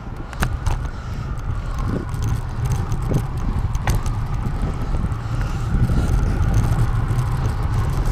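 Riding a bicycle along a city street: steady wind rumble on the microphone with tyre noise, scattered clicks and rattles from the bike, and a faint whine that slowly dips and rises.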